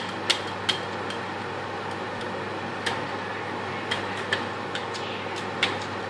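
Pot of spaghetti at a rolling boil: a steady hiss of bubbling water over a faint low hum, broken by scattered sharp ticks at irregular intervals.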